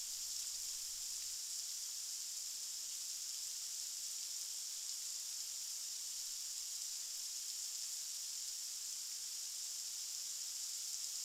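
Steady rain falling: an even, high hiss with no drops or patter standing out.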